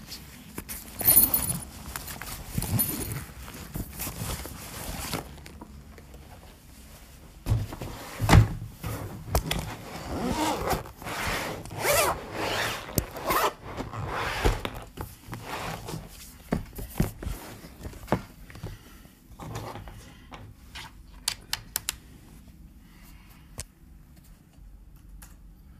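A black padded case being handled and unzipped: zipping, rustling and scraping, with a couple of dull thumps about eight seconds in. It thins out to scattered light clicks near the end.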